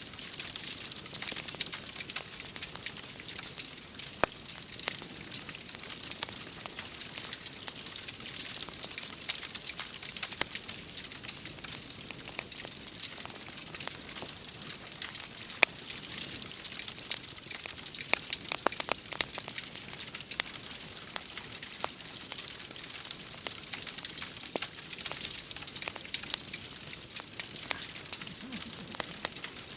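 Wood fire crackling, with many sharp pops scattered over a steady hiss of rain.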